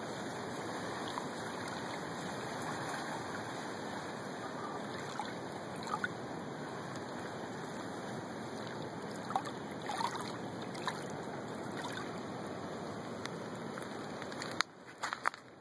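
Shallow water lapping and rippling, a steady rushing noise with a few small splashes. Near the end it drops away suddenly, leaving a few sharp clicks.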